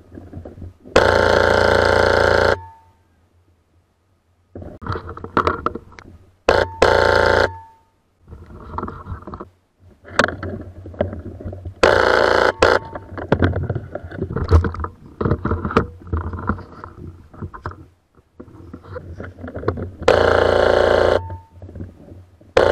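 Dual-barrel HPA airsoft rifle on Polarstar air engines firing four long full-auto bursts, each about a second to a second and a half, several seconds apart. Between bursts come the scuffs, rustles and knocks of the player moving and handling the gun.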